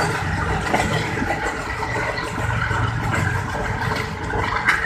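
Moving passenger train heard from a carriage window: a steady rumble of wheels running on the rails, with wind and frequent small clacks, including a sharper clack near the end.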